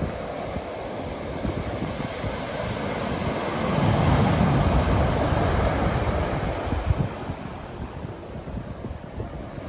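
Ocean waves breaking and washing up the beach, swelling to their loudest about four seconds in and then easing off. Wind buffets the microphone throughout with a low rumbling noise.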